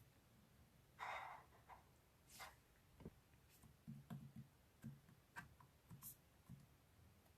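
Near silence in a small room, broken by faint scattered clicks and a soft rustle about a second in.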